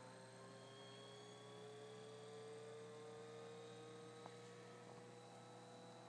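Two NEMA 17 stepper motors stepping as they trace a test circle, giving a faint whine whose pitch slowly rises, over a low steady hum.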